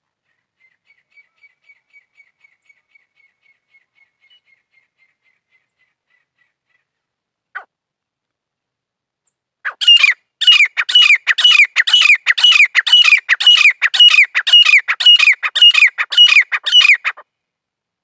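Grey francolin calling: a loud run of repeated notes, about two a second, each falling in pitch, starting about ten seconds in and lasting some seven seconds. Before it come a faint series of short chirps that slows and fades out, and a single click.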